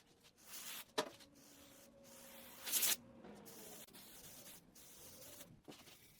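A sharp metallic clink about a second in, followed by a ring that fades slowly over several seconds, from a steel piece being handled at the bench; a short hiss or rub cuts in near the middle, and there is another small click near the end.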